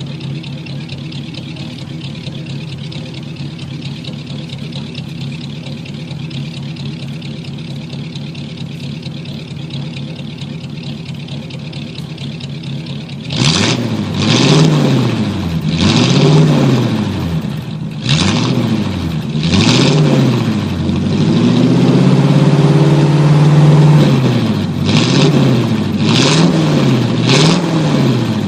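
A 1949 car engine idling steadily, then, from about halfway, revved again and again in short blips, its pitch rising and falling each time, with one longer held rev among them.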